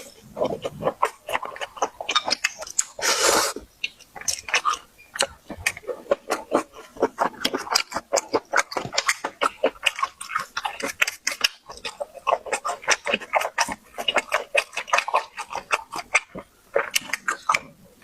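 Close-miked chewing with wet lip smacking, a fast irregular run of sharp clicks throughout. A short rushing hiss breaks in about three seconds in.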